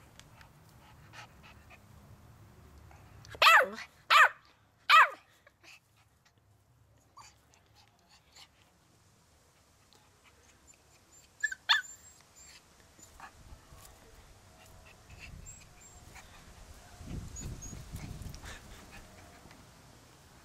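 A 15-week-old Jack Russell–Chihuahua cross puppy barking: three loud, high-pitched yaps in quick succession a few seconds in, then one or two shorter yips about halfway through.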